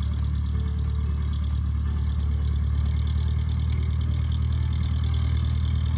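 Light aircraft's piston engine running steadily at low, taxiing power with its propeller turning, as the small high-wing taildragger taxis past on a grass strip.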